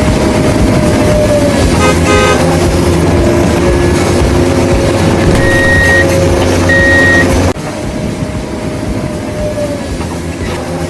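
Heavy truck engine running steadily, with two short horn beeps a little past the middle. About three-quarters of the way in the sound cuts abruptly to a quieter engine drone.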